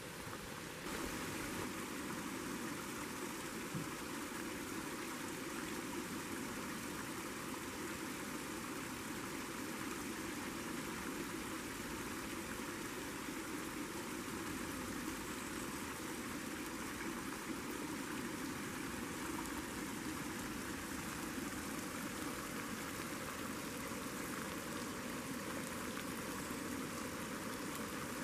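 Propane camp stove burner hissing steadily under a steel pot of water being heated, growing louder about a second in.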